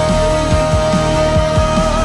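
Pop-rock song: a male singer holds one long note, bending up slightly near the end, over a steady drum beat and band.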